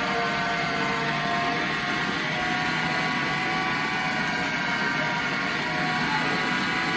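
Michelangelo electric meat grinder running steadily with a humming whine as it grinds cooked split peas into strands.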